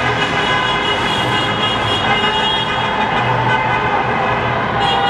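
Many car horns honking at once in celebration, overlapping into a steady, unbroken din over street traffic noise.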